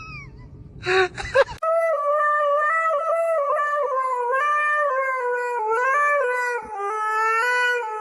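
A brief loud scuffle-like burst about a second in, then one long howl held for about six seconds, its pitch shifting up and down in steps.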